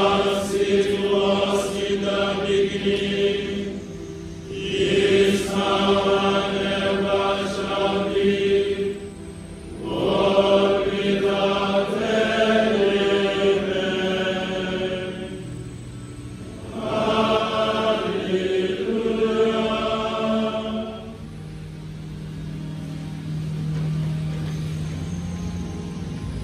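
A large group of men chanting in unison from their books, in four phrases with short breaths between. Near the end the chanting stops and a quieter, low steady tone is left.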